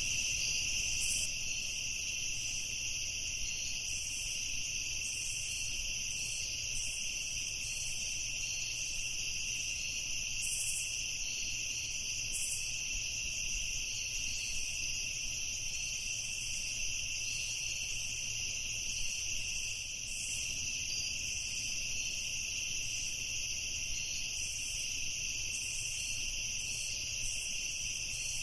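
Night chorus of crickets chirring steadily, a dense high-pitched trill that never lets up, with fainter, flickering insect calls above it.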